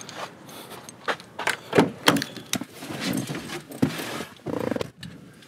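Car keys jangling, with a string of clicks and knocks as a car door is opened and someone climbs into the driver's seat.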